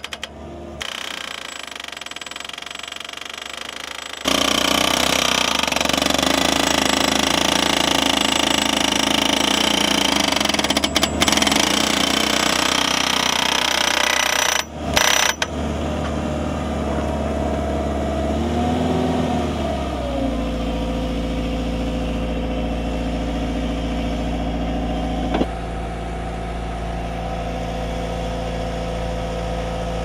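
Geoprobe drill rig running while drilling into the ground. About four seconds in the drill head starts working loudly for some ten seconds, with a brief break near the middle. The rig then runs on steadily, its pitch sliding down once along the way.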